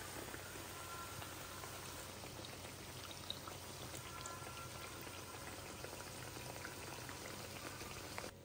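Jaggery puris deep-frying in hot oil in a pan: a steady sizzle with many fine crackling pops.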